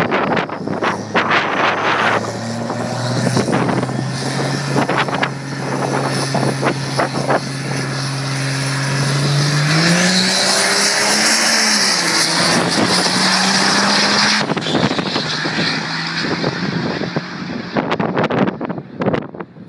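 Diesel pickup truck's engine holding a steady, slowly climbing note on the drag strip start line, then launching about ten seconds in, its pitch rising as a high whine joins in and the black-smoking truck pulls away, fading after about four seconds. Wind buffets the microphone.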